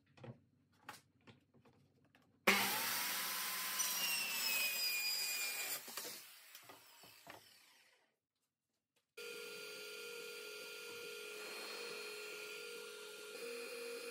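Handheld circular saw switched on and cutting through a plywood sheet for about three seconds, then its blade winding down to a stop. After a brief silence, an Ender 3D printer runs with a steady hum of fans and stepper motors, its motor tones shifting near the end.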